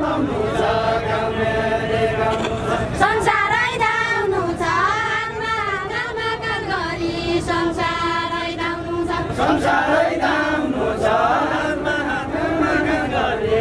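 A group of voices singing a Deuda folk song together in long held notes.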